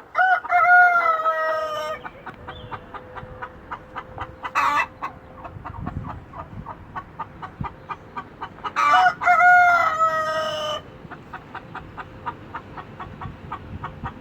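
Rooster crowing twice, each crow lasting about two seconds, the second about nine seconds in. Chickens cluck with short repeated calls between and after the crows.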